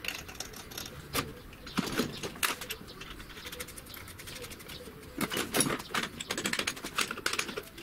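Scattered metallic clicks and knocks as a small wheel is slid onto the end of a steel pipe axle held in a bench vise and its hub is fitted, with a quicker run of clicks from about five seconds in.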